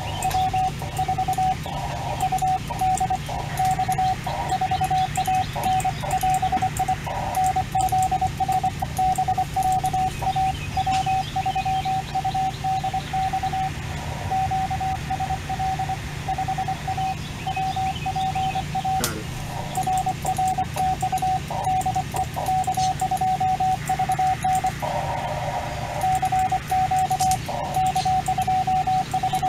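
Morse code (CW) tone from a ham radio transceiver: one steady pitch keyed on and off in quick dots and dashes, with a steady low hum underneath.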